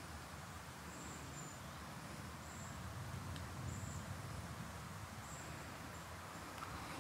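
Grasshopper chirping in short high bursts every second or so over a steady low rumble of outdoor background, ending with one sharp click.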